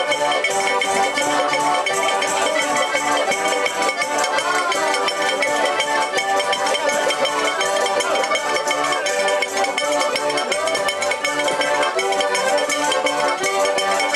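Diatonic button accordions playing a folk tune together, with frame tambourines jingling in a steady rhythm over them.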